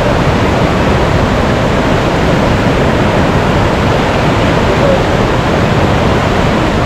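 Loud, steady rush of a waterfall, with no change through the stretch.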